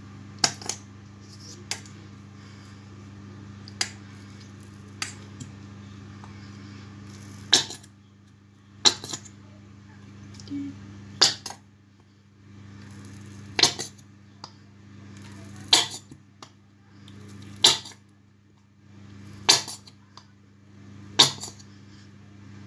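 Tube of hair dye being shaken hard, upside down, over a plastic bowl to get the dye out: sharp knocks, a few at first and then about every two seconds, over a steady low hum.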